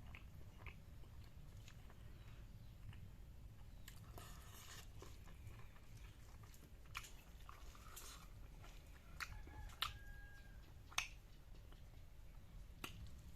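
A person chewing a mouthful of kidney beans with perilla seeds close to the microphone: soft wet chewing with scattered sharp clicks and smacks, the sharpest of them about seven, ten and eleven seconds in.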